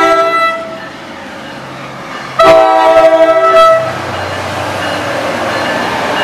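An NJ Transit ALP-45DP locomotive's multi-note air horn chord ends a long blast about half a second in, then sounds again for about a second and a half starting about two and a half seconds in. After the second blast the train rumbles past.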